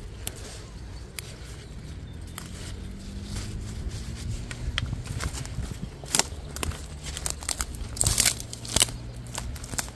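Rustling, snapping and crackling of leafy garlic mustard stems and dry twigs as the plants are picked by hand and dropped into a mesh basket, with a loud cluster of crackles about six to nine seconds in.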